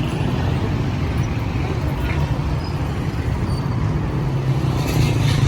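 Steady low rumble of street traffic under general street noise.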